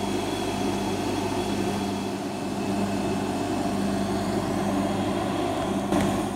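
Bench polishing motor running with a steady hum, its buffing wheel spinning; the sound cuts off suddenly near the end.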